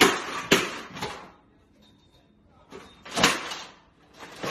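Thumps of feet hopping on a floor, about two a second, then after a pause two more knocks, the second near the end.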